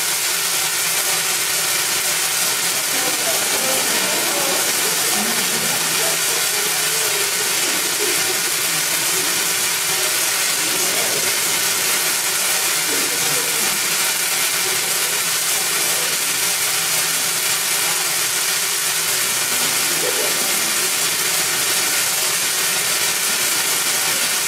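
Spark-gap Tesla coil in operation: a loud, steady buzzing crackle from its spark gap and high-voltage discharges. It cuts in abruptly just before and holds unbroken throughout.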